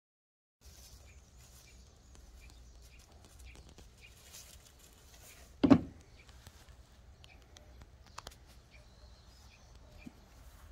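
A cat lands on a wooden deck after jumping down from a pergola: one short, dull thud about halfway through, over faint outdoor background noise. A couple of light taps follow.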